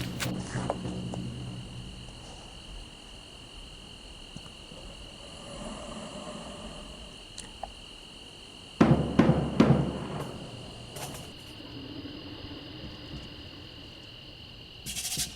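Crickets chirping in a steady, high, continuous trill, with a short flurry of drum strikes about nine seconds in and a brief rattle near the end, from a recorded percussion jam.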